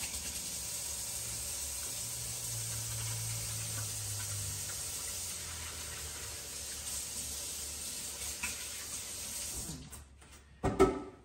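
Kitchen sink faucet running in a steady rush while hands are washed under it, shut off near the end.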